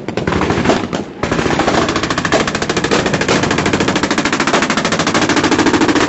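Loud, sustained automatic machine-gun fire: a short burst, a brief pause about a second in, then continuous rapid fire.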